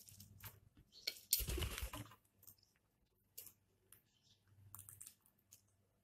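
Small dry clicks and ticks of a ringneck parakeet's beak nibbling food from a fingertip. A louder rustling burst comes about a second and a half in and lasts under a second.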